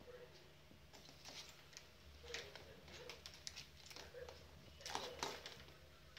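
Faint, scattered light taps and knocks as a cat bats a tin can hanging from a doorknob, knocking it against the door; the loudest knocks come about two and a half and five seconds in.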